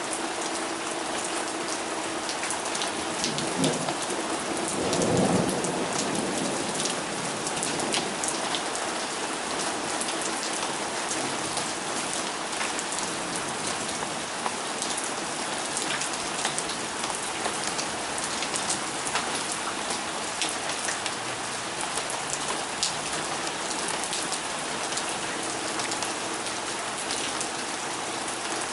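Steady rain falling, with many individual drops striking close by. About four seconds in, a low rumble of thunder swells for a couple of seconds and fades.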